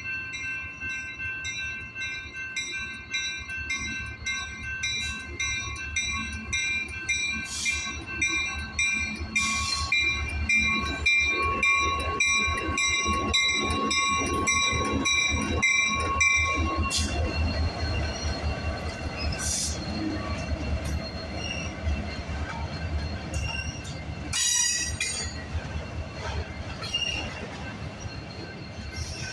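Canadian National freight train passing a grade crossing. The steady, rapidly pulsing ring of the crossing signal bell plays as the diesel locomotives rumble by, their wheels clicking over rail joints; the ringing stops about halfway through. Auto-rack cars then roll past with a steady rumble, rail-joint clicks and brief high wheel squeals.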